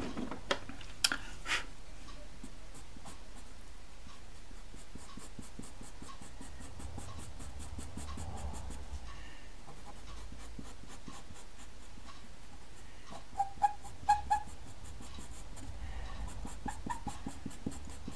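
Pastel pencil scratching over textured pastel paper in runs of short, quick strokes. A few short louder sounds come about three-quarters of the way through.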